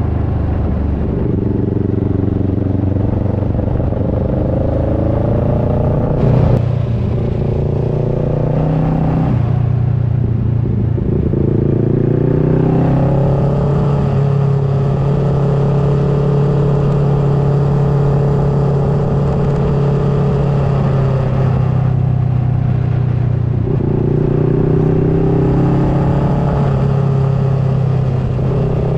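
2009 Kawasaki Versys 650's parallel-twin engine running under way, its pitch climbing and dropping several times with the throttle and holding steady for a stretch in the middle. A single sharp click comes about six seconds in.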